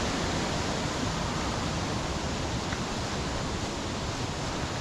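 Steady rushing of water from a waterfall, an even noise with no breaks.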